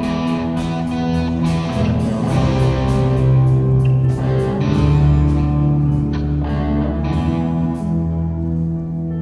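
Live rock band of electric guitars, electric bass and a drum kit playing an instrumental. The drum and cymbal strokes stop about eight seconds in, leaving the guitars and bass ringing on a held chord.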